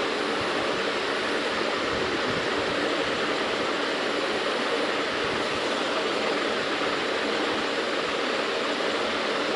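Steady, even rushing noise with no change and no distinct events.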